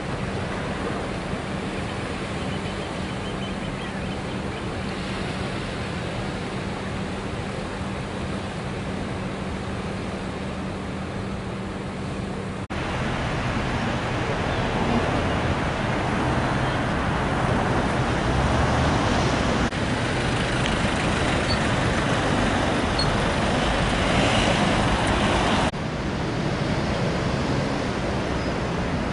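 Steady road-traffic noise with a low hum in the first part. It jumps abruptly louder about halfway through and drops back abruptly near the end.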